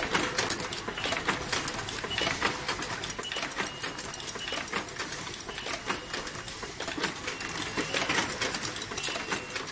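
Automatic transformer magnetic-core assembly and tape-wrapping machine running: a dense, irregular clicking and clattering from its moving mechanisms and parts feeders, with a faint steady hum and a few short high tones now and then.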